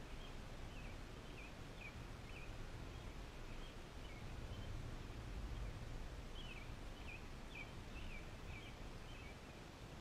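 A songbird calling in short quick chirps, in two runs separated by a pause of about two seconds, over a low steady rumble of outdoor noise.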